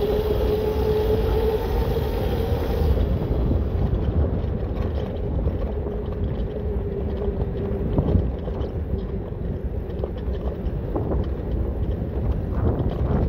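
A 1500 W electric bike's motor whines at a steady pitch over wind buffeting on the microphone. The whine sinks slightly and fades out about two-thirds of the way through, and a few knocks come near the end.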